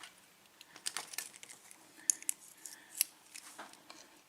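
Light, irregular clicks and ticks of small metal lock pins and a tool being handled as the bottom pins are taken out of a Euro cylinder's plug, the sharpest clicks about one, two and three seconds in.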